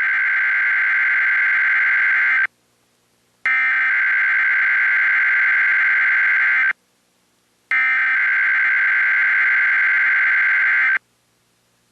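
Emergency Alert System SAME header: a digital data tone sent three times, each burst about three seconds long with about a second of silence between, marking the start of a Required Weekly Test.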